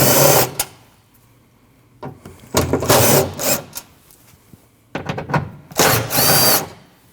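Power driver spinning out the three T40 Torx screws that hold a liftgate latch, in three short whirring runs a couple of seconds apart, one run per screw.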